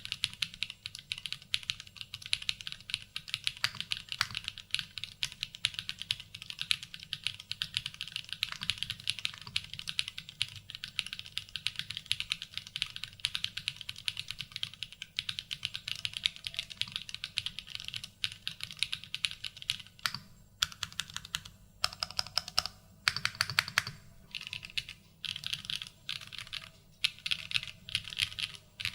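Mechanical keyboard being typed on: an 80Retros GB65 with KTT Game 1989 Red switches and ABS Cherry-profile keycaps. Fast, continuous keystrokes give way about two-thirds of the way through to short bursts of keys with brief pauses between them.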